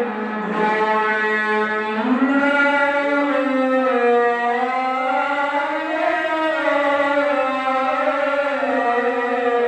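A male Quran reciter's voice through a microphone, drawing out one long melismatic phrase in the Egyptian ornamented style. The pitch rises and falls slowly without a break.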